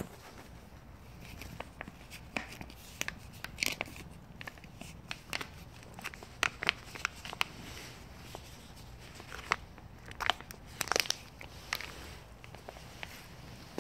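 Cat eating wet cat food: irregular wet chewing clicks and smacks of the mouth, scattered and uneven, with a louder run of them near the end.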